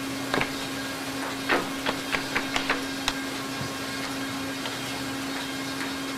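Thin cedar wood slats clacking against each other as they are handled and stacked by hand: a quick run of sharp wooden clicks during the first three seconds, over a steady low hum.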